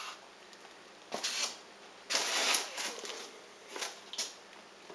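Cardboard, foam sheets and plastic bubble wrap rustling and scraping as a shipping box is unpacked by hand, in several short bursts.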